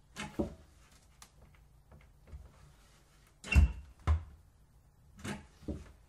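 Wooden kitchen cupboard doors being opened and shut, giving knocks and rattles in three clusters: one near the start, the loudest pair of knocks about halfway through with a short squeak, and another pair near the end.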